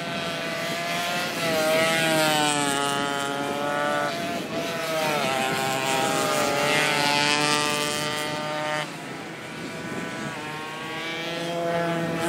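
Several Suzuki AX100 two-stroke single-cylinder race motorcycles passing at racing speed, their engines revving up in rising pitch and dropping back at gear changes, about four and nine seconds in, with more than one bike audible at once.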